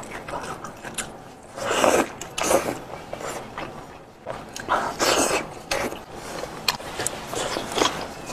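Close-up eating sounds: meat being bitten and pulled off a cooked sheep's head with gloved hands, chewing, and irregular sharp clicks.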